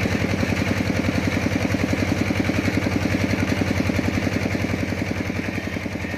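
An engine idling steadily with a fast, even chugging beat, easing off slightly near the end.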